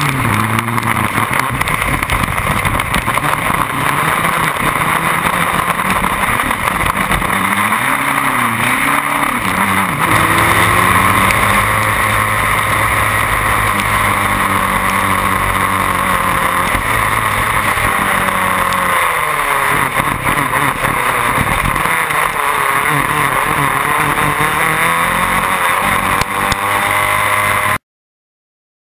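Onboard sound of a Formula BMW single-seater's 1.2-litre four-cylinder engine, at speed on a wet track, its pitch rising and falling with throttle and gear changes over a steady rush of wind and spray. The sound cuts off suddenly near the end.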